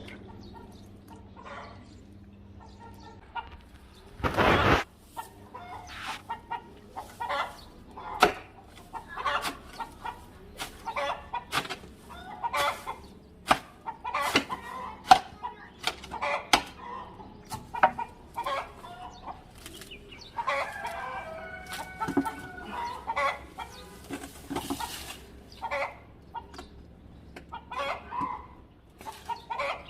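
Chickens clucking in many short, repeated calls, with a longer call around twenty seconds in. There is a loud rush of noise lasting about half a second, a few seconds in.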